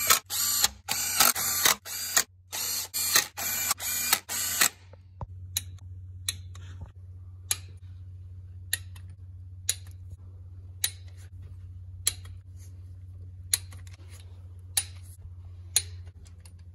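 A cordless impact driver runs the valley-cover bolts down on a 5.3 V8 in several short, loud bursts of hammering. For the rest, a click-type torque wrench ratchets and clicks about once a second as the bolts are torqued, over a steady low hum.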